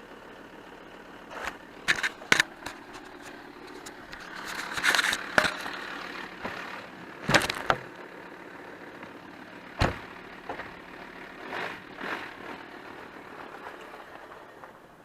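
A VW Touareg's 2.5 R5 TDI five-cylinder diesel idling on bad injectors, with about a dozen sharp knocks and clatters over it.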